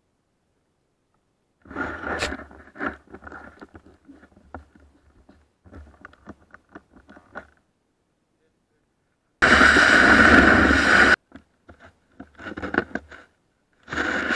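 Snow crackling and scraping against a snowboard and its nose-mounted action camera, heard as a run of irregular clicks and crunches, broken by sudden cuts to silence. Two loud stretches of rushing noise come in abruptly, one in the middle and one near the end.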